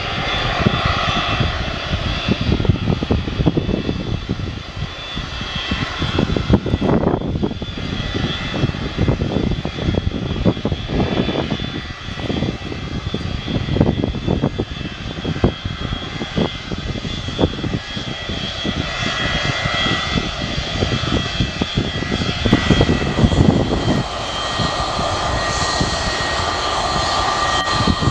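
Boeing 727-200's three Pratt & Whitney JT8D low-bypass turbofans running as it taxis: a steady jet whine with several high tones over a deep rumble, growing louder in the last few seconds.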